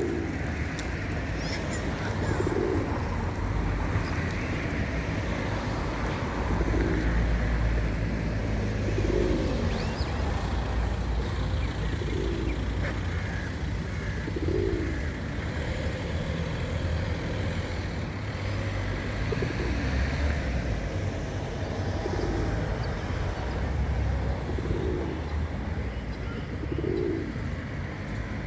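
Pigeons cooing, short low coos repeating about every two seconds, over a steady low rumble.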